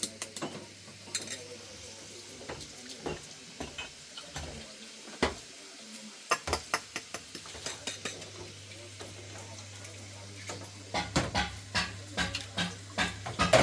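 Irregular clinks, knocks and scrapes of hard objects being handled against one another, coming in a quick flurry near the end, over a faint steady low hum.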